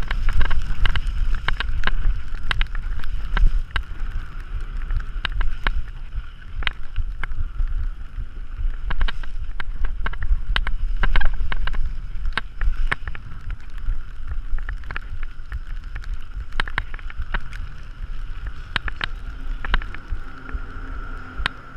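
Wind rumbling on an action camera's microphone during a mountain-bike descent of a rough dirt trail, with frequent sharp clicks and clatter from the bike over bumps. It gets quieter in the second half.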